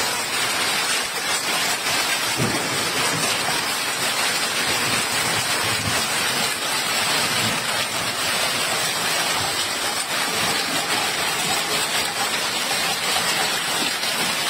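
Hailstorm: hailstones falling thickly and striking the ground, a dense steady hiss made of countless small impacts.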